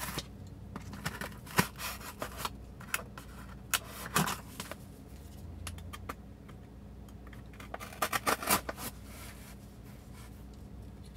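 Knife blade slicing and scraping through packing tape on a cardboard box, with irregular scratches and taps of the cardboard being handled.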